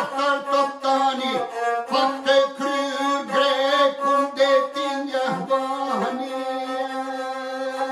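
A lahuta, the Albanian single-string bowed fiddle, played in a steady drone under a man's chanted epic singing. The voice drops out about six seconds in, leaving the lahuta alone.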